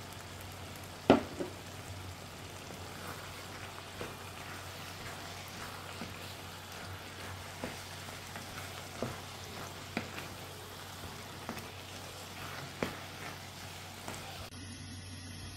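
Tomato and zucchini sauce sizzling in a frying pan while a wooden spatula stirs in shredded dried meat. Scattered knocks of the spatula against the pan, the loudest about a second in, over a steady low hum.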